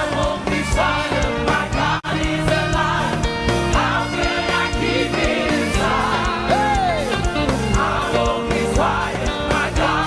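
Live gospel praise music: singers and a choir over a band with a steady beat. The sound drops out for an instant about two seconds in.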